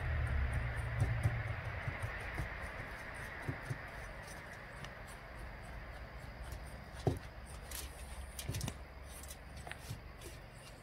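Spatula stirring and scraping a crumbly flour, sugar and melted-butter mixture in a stainless steel bowl: soft scraping, louder in the first couple of seconds, with a few light knocks of the spatula against the bowl.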